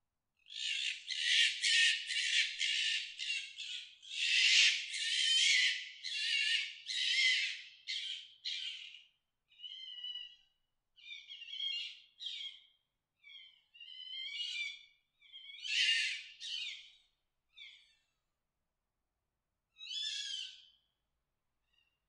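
Red fox giving its mating-season scream: a fast series of high-pitched calls for the first nine seconds or so, then sparser single calls a second or two apart, the last about twenty seconds in.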